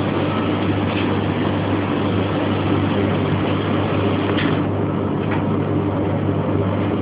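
Household laundry machine running: a steady motor hum under a broad rushing noise, with a few faint clicks.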